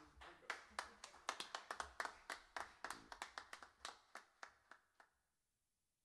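Hand clapping, about three or four claps a second, thinning out and stopping about five seconds in.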